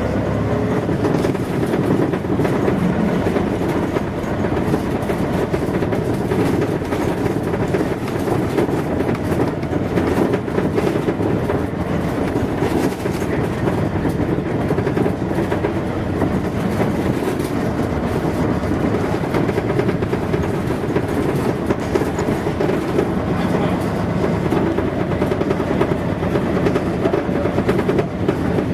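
Riding inside a 1989 Mitsubishi P-MP218M bus under way: its V8 diesel engine running, with road noise and a dense, constant rattle from the body.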